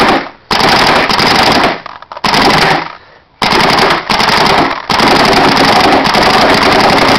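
FEP Quest electronic paintball marker firing fast strings of shots in PSP ramping mode, fed by a Torque loader. The strings are broken by short pauses about half a second in, around two and three seconds in, and just before five seconds, then run on without a break.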